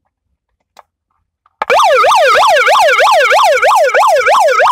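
Electronic police-style siren switched on about one and a half seconds in, sounding a loud, fast yelp, its pitch sweeping up and down about three times a second. Two faint clicks come just before it starts.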